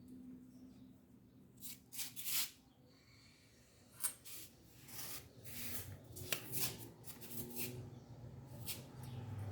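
Clothes being handled and shaken out, fabric rustling and rubbing in short irregular bursts.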